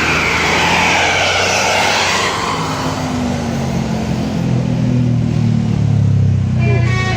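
Tour bus diesel engine passing close: a rush of engine and road noise over the first couple of seconds, then a low engine drone that grows louder as the bus pulls away.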